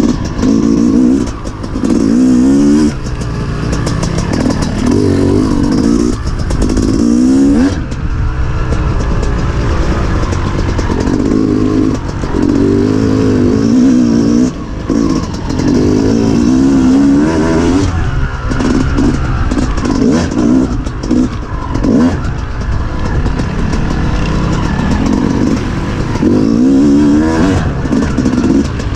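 Dirt bike engine revving up and down over and over as the throttle is worked on an off-road trail, the pitch rising in short sweeps every second or two with brief drops in between.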